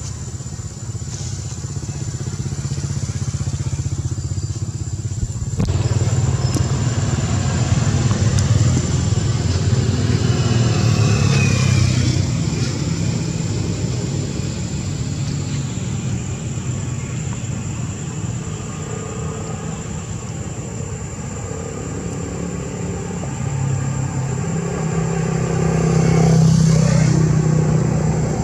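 Low engine hum of motor vehicles, growing louder about six seconds in and again near the end, with a thin steady high-pitched tone throughout.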